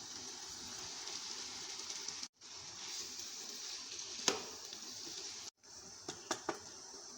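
Food sizzling in hot oil in a pan, a steady hiss with a few sharp clinks of a utensil against the pan. The sound cuts out abruptly twice where the footage is spliced.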